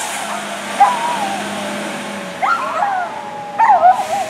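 A dog barking and yelping in short, irregular calls, a few of them close together near the end, over a steady tone and a fading low traffic hum.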